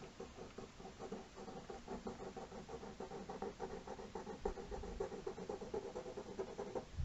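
Rapid, repeated sketching strokes of a drawing tool scratching back and forth on paper, several strokes a second.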